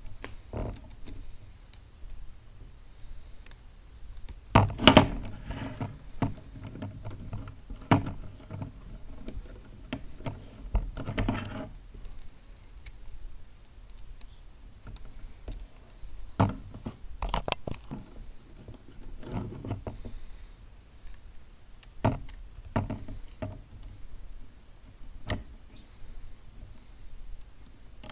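Hard plastic Lego Technic pieces clicking and knocking as they are handled and pressed together by hand. The clicks come irregularly, with busier clusters about five seconds in and again around eleven seconds, and single clicks scattered after.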